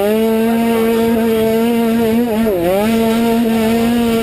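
An automatic (CVT) cross scooter's small engine, heard from onboard at racing speed, held at a steady high pitch, dropping briefly about two and a half seconds in and climbing straight back.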